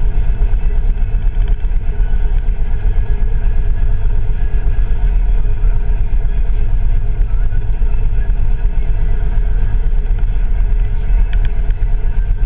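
A vehicle in motion on a ride: steady, loud rumble of wind buffeting the camera's microphone over the vehicle's running noise.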